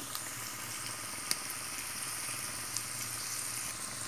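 Peeled garlic cloves and chopped ginger sizzling in hot oil in a nonstick wok: a steady, even hiss, with a couple of faint ticks.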